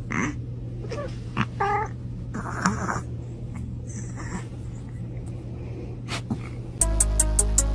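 A cat giving several short, scattered meows over a steady low hum. Electronic music with a steady beat comes in near the end.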